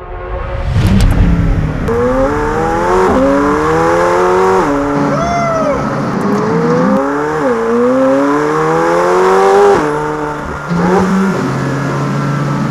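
McLaren Senna's twin-turbo V8 accelerating hard through the gears: a loud blast of revs about a second in, then its pitch climbs and drops sharply at each upshift, four or five times, before settling to a steadier, lower note near the end.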